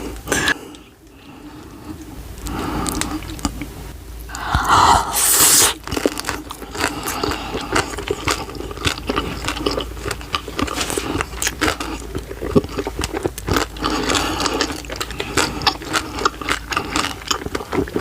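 Close-miked wet chewing of a big mouthful of dumplings: a dense run of small smacking and crackling clicks, with a louder burst of noise about five seconds in.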